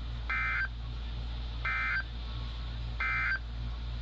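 NOAA Weather Radio EAS end-of-message signal: three short bursts of SAME digital data tones, each a harsh two-tone buzz about a third of a second long, spaced about a second and a third apart, over a steady low hum from the receiver.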